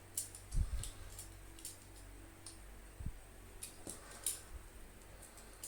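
Scattered small clicks and snips of a mains flex being stripped by hand, with a few soft handling knocks in between.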